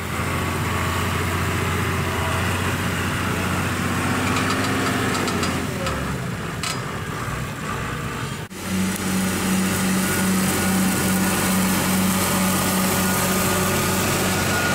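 Diesel engine of a John Deere 6800 tractor running steadily. About halfway through it cuts to a Zetor Crystal tractor working a stubble cultivator, a different steady engine note with a regular pulsing throb.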